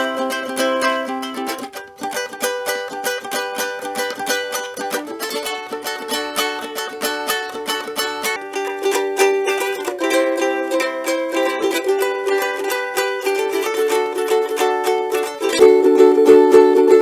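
A cigar box ukulele strummed, playing chords that change every couple of seconds.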